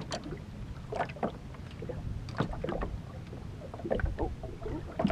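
Small waves lapping and slapping against the hull of an aluminum fishing boat at rest, in irregular short splashes over a low rumble.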